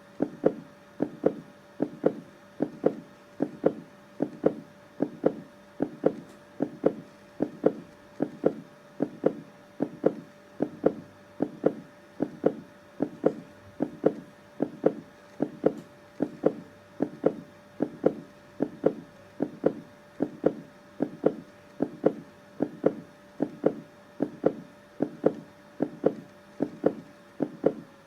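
Heartbeat sound: an even rhythm of double thuds (lub-dub), a little more than one a second, with a faint steady tone underneath.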